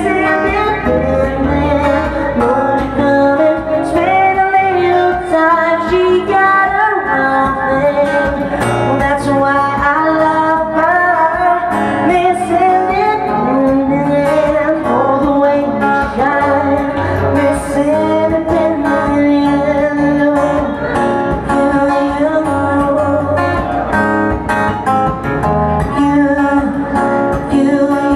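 A song performed with singing and strummed acoustic guitar accompaniment, the voice carrying a continuous melody.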